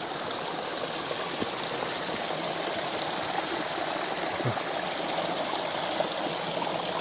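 Small mountain stream running steadily through grass and stones, a continuous even rush of water.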